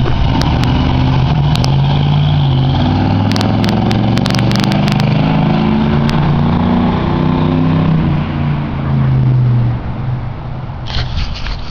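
Freshly rebuilt 305 cubic inch small-block Chevy V8, with a new carburetor, pulling the car under acceleration, its exhaust note rising and falling as the revs change. A run of sharp clicks comes about three to five seconds in, and the engine grows quieter near the end.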